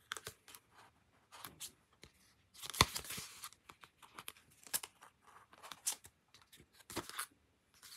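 Sheet of paper being lifted, moved and slid over a journal page: intermittent rustling and crinkling. There is a sharp tap with a short rustle a little under three seconds in, and another rustle near the end.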